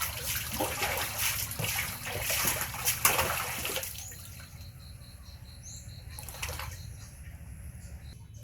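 Bathwater splashing and sloshing as a baby monkey is washed, stopping about four seconds in.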